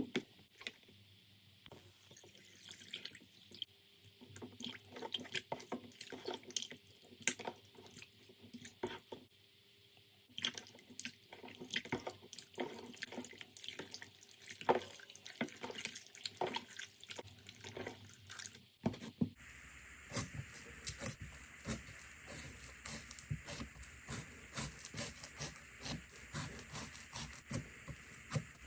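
Slime being squished and poked by hand, making wet, sticky clicks and pops. About 19 seconds in the sound changes abruptly to a denser, continuous crackle as a different slime is handled.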